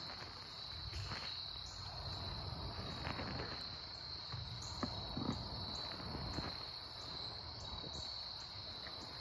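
Insects, crickets or similar, trilling steadily at a high pitch, with a low rumble underneath and a few faint soft knocks.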